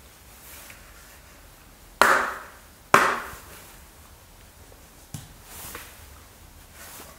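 Helmet-mounted Peltor Optimum III earmuffs being fitted to the sides of a 3M Peltor G3000 safety helmet: two sharp plastic snaps about a second apart, then a fainter click and light handling noise.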